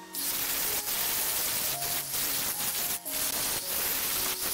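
Hand-held power grinder with a sanding drum running against wood, sanding the curves of a hardwood armrest: a steady hissing grind that starts just after the beginning and breaks off briefly about three seconds in.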